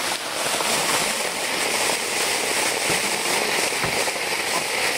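Waterfall rushing steadily, a loud unbroken roar of falling water, with a couple of dull low thumps about three seconds in.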